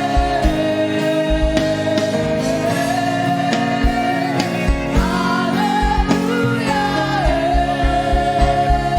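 Live gospel praise-and-worship music: sustained singing over a band, with a kick drum beat that becomes steady in the second half.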